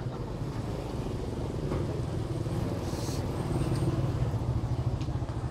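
Steady low engine rumble, swelling slightly around the middle.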